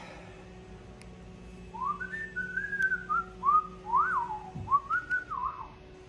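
A person whistling a short tune, a single clear pitch sliding up and down through several notes, starting about two seconds in. Underneath is a steady low hum of machinery.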